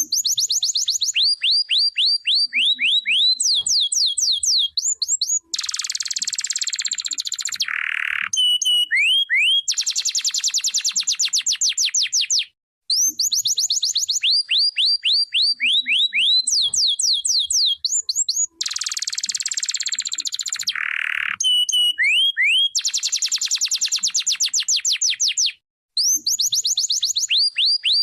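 Domestic canary singing: fast trills of sharp repeated notes, harsh rattling rolls and a lower held note, with the same song sequence repeated twice.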